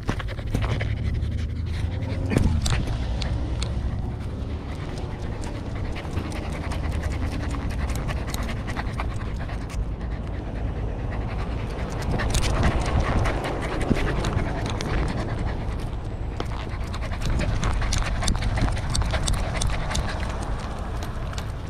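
A corgi panting steadily, heard very close from a camera on its collar, with frequent small clicks and a low rumble.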